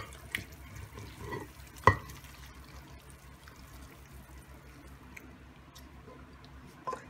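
Cooked vegetable and prawn curry sliding and plopping out of a pan into a ceramic serving dish, with a few sharp clicks of hard contact, the loudest about two seconds in.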